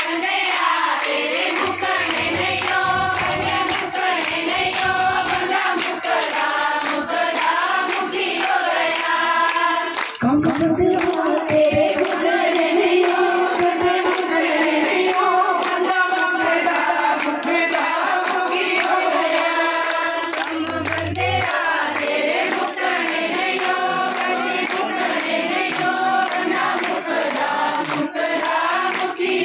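Amplified Hindu devotional bhajan: a male lead singer's voice with a group of voices singing along, over a steady, evenly ticking beat.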